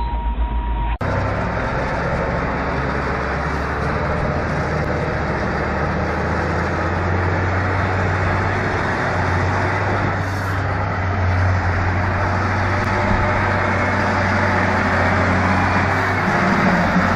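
A large vehicle's engine running steadily: a continuous low hum under a broad rushing noise, which starts at a cut about a second in.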